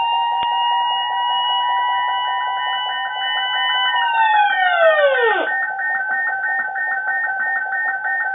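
Loud electronic alert tones: a steady tone over a fast pulsing beep. About four seconds in, the steady tone slides steeply down in pitch and dies away, leaving a rhythmic pulsing beep.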